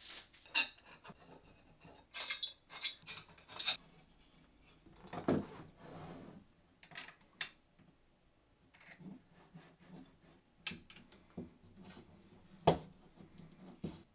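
Aluminium extrusion frame rails and small metal parts of a laser engraver being handled and fitted together on a wooden bench: scattered metallic clinks and knocks, with the sharpest knock near the end.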